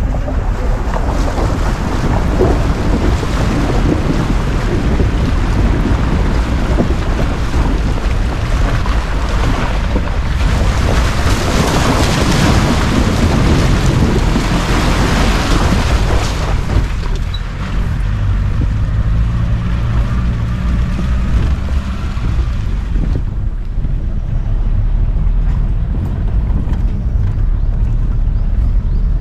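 Open safari jeep driving along a forest track: the engine runs under a continuous rushing noise of wind on the microphone, which eases off near the end as the engine note comes through more steadily.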